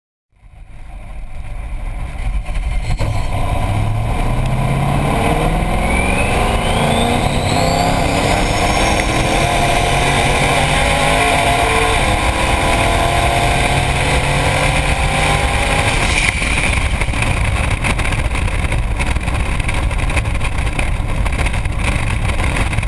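Ferrari 288 GTO's twin-turbo V8 at full throttle, its pitch climbing in repeated sweeps through the gears, under heavy wind rush on a wing-mounted camera. About sixteen seconds in the engine note drops away, leaving mostly wind rush as the car coasts on its braking parachute.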